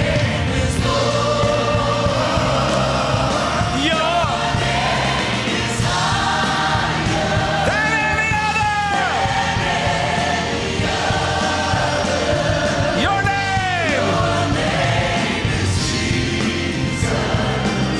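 Gospel choir and congregation singing a worship song over a steady instrumental accompaniment, with long held notes.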